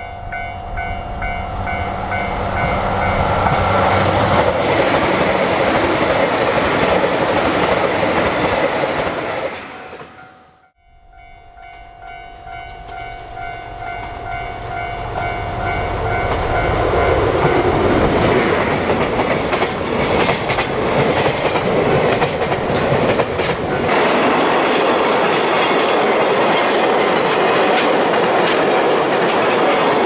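Diesel trains passing a level crossing. First a KiHa 261 limited express approaches, its running noise building over several seconds until the sound breaks off about ten seconds in. Then a DF200 diesel locomotive hauling a container freight train approaches, and near the end its wagons clatter steadily over the rails, with a steady electronic crossing-alarm tone under both approaches.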